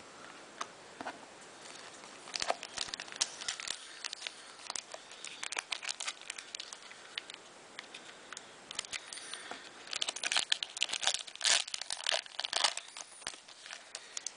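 Crinkling, rustling and clicking as trading cards and their packet wrapping are handled by hand. It comes in two busy spells, about two to four seconds in and again from about ten to thirteen seconds, with a few scattered clicks between.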